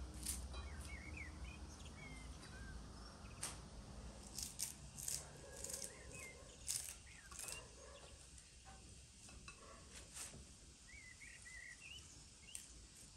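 Soft snaps and clicks of fresh herb stems being cut and broken by hand with a small knife, mostly in the middle of the stretch. Small birds chirp faintly in the background throughout.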